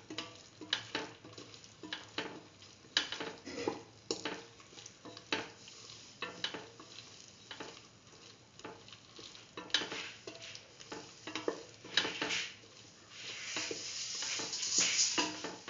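Spatula stirring pieces of ash gourd frying in oil and spices in a metal pan, with irregular scrapes and knocks against the metal over a sizzle. Near the end the sizzle grows louder for a couple of seconds.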